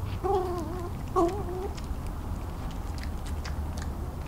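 Adult male red fox giving two short, high-pitched whines, each about half a second long and wavering in pitch, a little over a second apart. It is the grumbling whine of a fox frustrated at being kept from the food by badgers.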